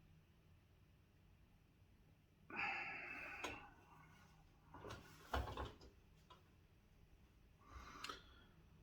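Quiet room with a person's breathing in a pause: a long breath out about two and a half seconds in, a short breath with a faint knock around five seconds, and a fainter breath near the end.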